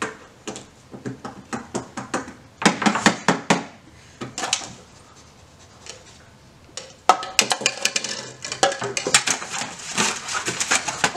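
Tableware clattering on a table: plates and plastic cups being knocked and handled in several runs of quick clicks and knocks.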